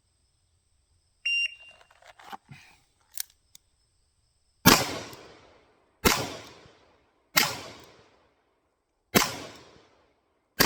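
A shot timer's short start beep, a few soft handling knocks as the revolver is drawn, then five shots from a single action revolver, each one to two seconds apart and each with a short ringing echo.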